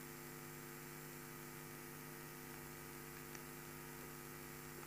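Faint, steady electrical mains hum: a few steady low tones over a light hiss, the background of a lecture-hall recording between sentences.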